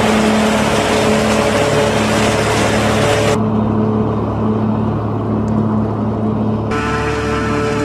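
John Deere 5400 self-propelled forage harvester running steadily under load while chopping maize: a steady engine hum with a rushing noise over it. About three seconds in the sound turns duller, losing its upper hiss, and the fuller sound returns near the end.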